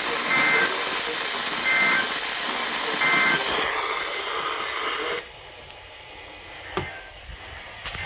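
Weather radio EAS end-of-message data bursts: three short two-tone warbling bursts about a second and a half apart over radio static hiss, closing the weekly test broadcast. About five seconds in, the hiss drops off sharply, leaving a quieter background with a few faint clicks.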